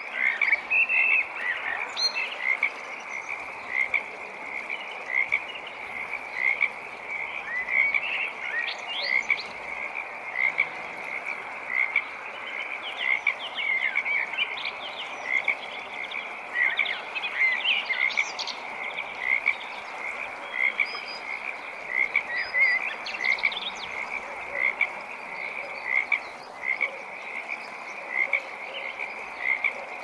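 Chorus of many frogs calling at a pond: short, rapid calls overlapping several times a second, over a steady background hiss, with a few higher chirps now and then.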